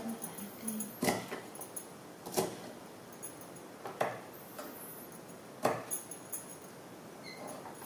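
Kitchen knife chopping a bundle of green beans on a thick round wooden chopping board: sharp knocks of the blade against the wood, one every second or so, with the clearest four spread through the clip.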